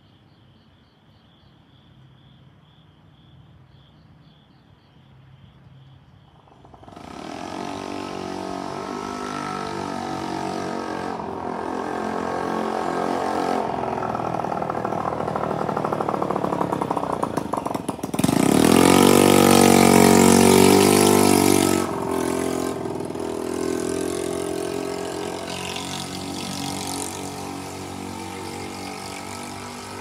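Faint insect chirping, then a sudden switch to a Keikyu 1000-series train approaching and running over a railway level crossing, heard with the crossing's warning signal going. The loudest part, with a strong low pitched tone, comes about two-thirds of the way in and stops sharply, and the train sound then slowly fades.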